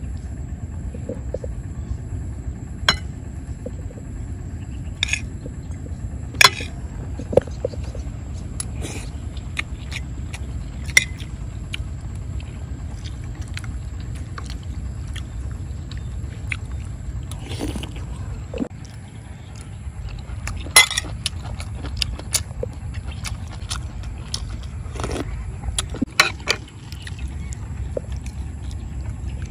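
A metal spoon clinking and scraping against a ceramic plate, about a dozen short sharp clicks spread out over a steady low rumble.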